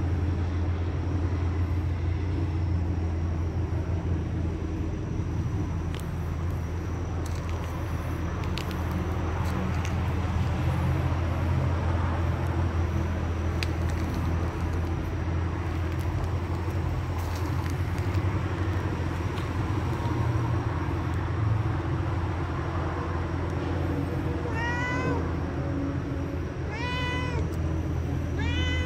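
Domestic cat meowing three times near the end, each meow a short call that rises and falls in pitch, over a steady low hum.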